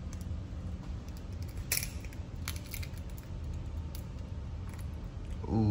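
Scattered light clicks and taps of a utensil handled against a skillet of melting butter, over a steady low hum.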